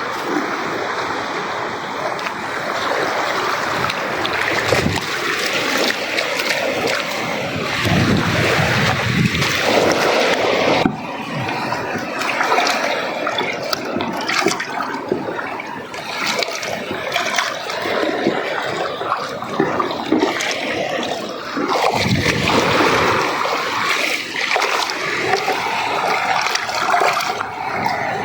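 Water splashing and sloshing continuously as sliced fish are washed by hand.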